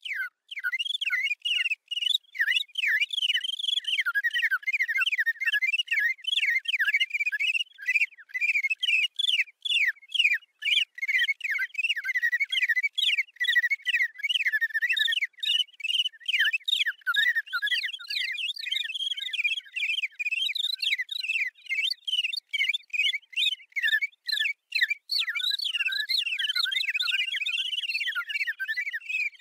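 Small songbirds chirping rapidly and without pause, many short high chirps tumbling over one another.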